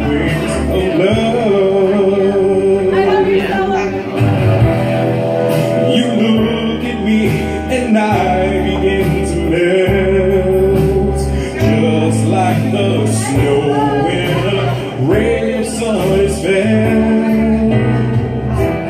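A man singing karaoke into a microphone over a recorded backing track, his amplified voice holding and sliding between sustained notes.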